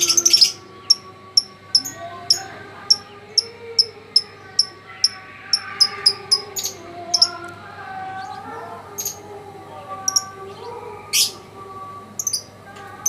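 Lovebird giving short, sharp high-pitched chirps, about two a second, over a quieter wavering background.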